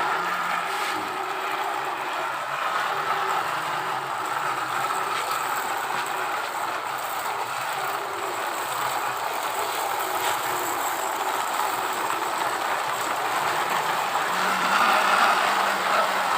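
A steady mechanical running noise, like a vehicle or machine, growing a little louder near the end.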